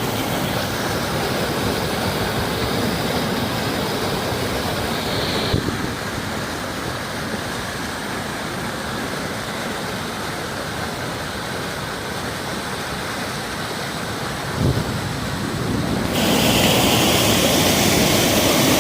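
Steady rushing of rainwater in flood, an even noise that changes abruptly twice and has a short thump near the end.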